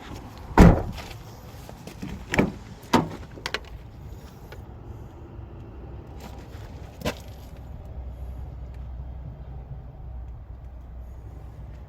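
Car door shut with a heavy thump about half a second in, followed by a few lighter knocks and clicks. A low steady rumble runs underneath and grows a little stronger in the second half.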